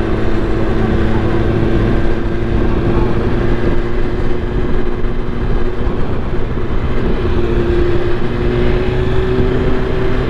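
Sport motorcycle engine running at a steady cruise, with heavy wind and road noise on a helmet-mounted microphone. The engine note rises slightly about eight seconds in.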